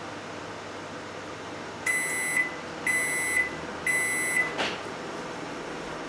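Daewoo microwave oven running with a steady hum, then giving three high beeps about a second apart as its countdown reaches zero, signalling that heating is finished. A short click follows the beeps.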